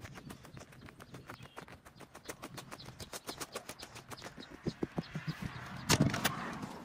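Booted footsteps crunching quickly and evenly across gravel. About six seconds in comes a louder clatter as the storm door is opened, with the metal milk bucket in hand.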